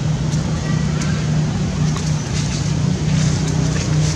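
Steady low drone of an engine running, like a vehicle idling, with a few faint short squeaks above it.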